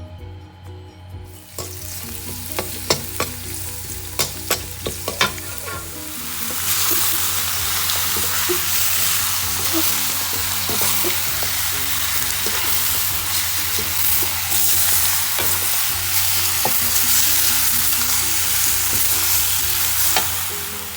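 Food frying in a hot pan: a few sharp utensil clicks in the first seconds, then a loud, steady sizzle from about six seconds in, with stirring.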